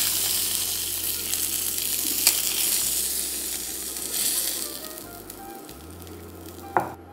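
Chicken thighs sizzling in a nonstick frying pan as they sear skin-side down in their own rendered fat, with no oil added. The sizzle fades over the last few seconds as the pieces are lifted out, and metal tongs give a sharp clink near the end.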